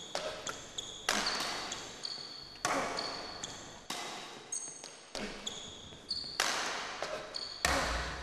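A slow rhythmic beat of sharp percussive hits, about one every second and a half, each with a fading noisy tail, with short high pings at the same few pitches between them.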